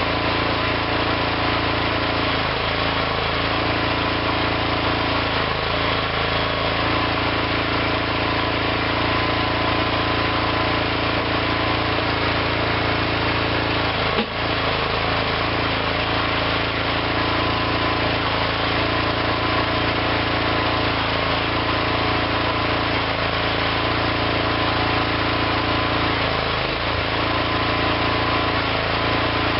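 Small engine of a homemade hydraulic backhoe running steadily, with a single short knock about halfway through.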